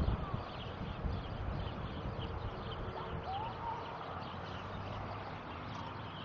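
Steady outdoor background noise with a low rumble and faint, scattered high chirps.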